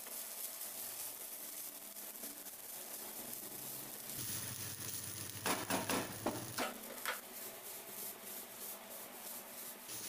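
Spatula scraping and stirring fried rice with vegetables around a nonstick frying pan, with a cluster of sharp knocks against the pan about halfway through.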